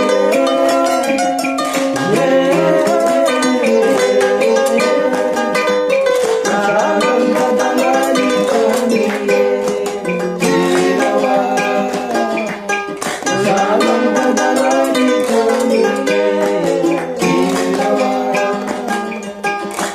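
Background music led by plucked strings, with a melody over a steady strumming pattern.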